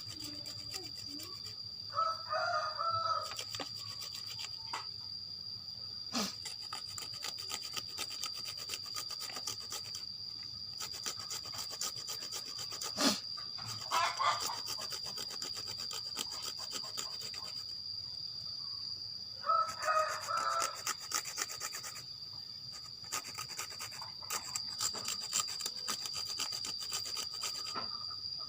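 Hand grater rasping as panglay rhizome and leaves are rubbed across it in rapid repeated strokes, with a couple of sharp knocks. A rooster crows three times in the background.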